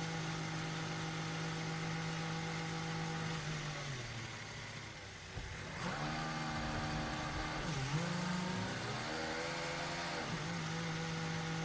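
Formula 1 car's V6 turbo-hybrid engine droning steadily on the pit-lane speed limiter. Its note dies away as the car slows to a stop about four seconds in. From about six seconds its revs climb in steps through the gears as it pulls away, dip once more near eight seconds, and settle back to the steady limiter drone after about ten seconds.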